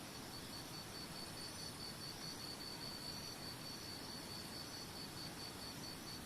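Faint, steady rush of waterfall water. Over it, a high chirp at one pitch repeats evenly about five times a second, stopping just before the end.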